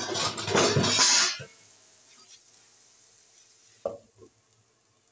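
Wooden spatula stirring and scraping onion-and-spice masala frying in oil in a nonstick kadhai, with sizzling, loudest for the first second and a half. About four seconds in, a short knock as a glass lid is set on the pan.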